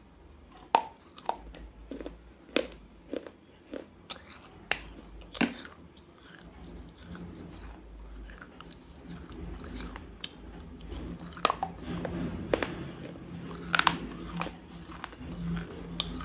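Pieces of baked clay pot bitten and chewed close to the microphone: sharp crunches about twice a second, then denser crunchy chewing with a few louder cracks in the second half.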